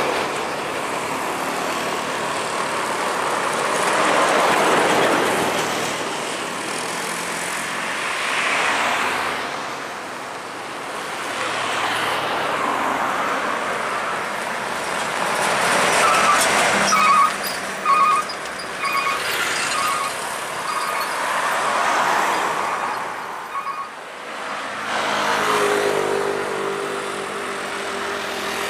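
Heavy diesel trucks passing close by one after another on a highway climb, their engine and tyre noise swelling and fading every few seconds. From about the middle, a run of short high beeps repeats for several seconds, and near the end a steady low engine drone comes in.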